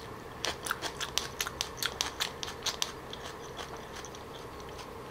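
Close-miked chewing of a mouthful of food: a quick run of sharp mouth clicks and smacks for about three seconds, thinning out near the end.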